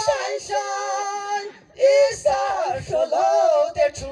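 A man and a woman singing together into stage microphones over a PA, with held, wavering notes and a brief pause about one and a half seconds in.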